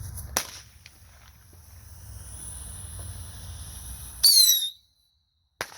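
Small firecrackers going off: a sharp pop about half a second in, then a much louder bang with a brief high-pitched whine about four seconds in, after which the sound cuts out for a moment.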